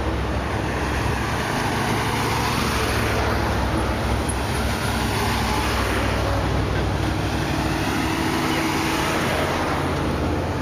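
Steady drone of a road vehicle under way: a low engine hum with tyre and road noise, even in level.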